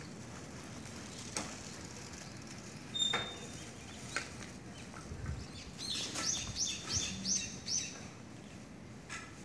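A small bird chirping: a single short clear note about a third of the way in, then a quick run of about six repeated high notes, about three a second, past the middle.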